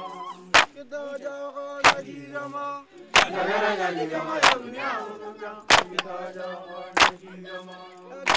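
A group of voices singing a chant for a dance, with a sharp beat about every second and a quarter. The voices swell louder a little past the middle.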